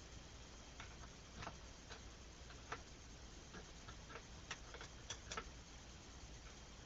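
Faint, irregular light clicks and taps, about a dozen scattered through, over a low steady hum.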